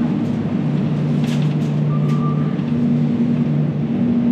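Steady low hum of supermarket refrigerated display cases, with a few light clicks and a short faint beep about two seconds in.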